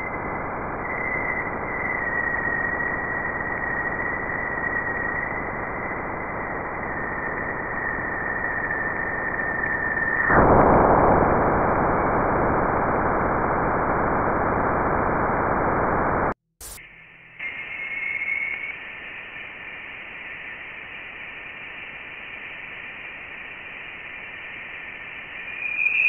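Spacecraft plasma-wave data played as audio, from the Juno probe's Waves instrument as it crosses Jupiter's bow shock. A steady hiss lies under a thin whistling tone that sinks slightly in pitch. About ten seconds in, a sudden, louder rush of noise marks the shock crossing. After a short break, a second recording, Voyager 1's plasma-wave data, plays as a fainter hiss with a thin tone that brightens and rises a little near the end.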